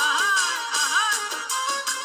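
Middle Eastern-style wedding music: a melody in short arching, sliding phrases over a steady percussion beat.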